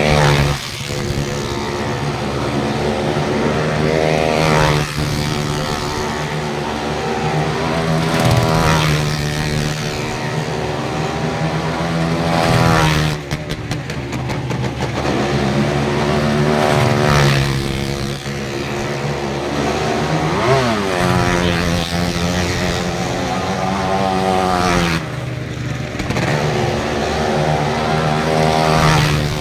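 Motor engines running continuously, revving up and down several times with rising and falling pitch.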